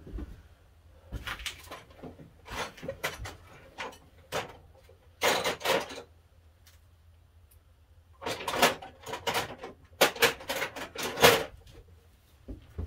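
Irregular knocks, clatters and scrapes of tools or metal parts being handled on a workbench, in several short bursts, the loudest about ten to eleven seconds in.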